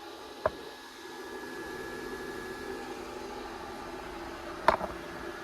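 Cooling fan of a Hitbox HBM-145 MIG welder running steadily with a whooshing hiss and hum. A sharp click comes about half a second in, then a faint high steady tone for a couple of seconds, and a couple of clicks near the end.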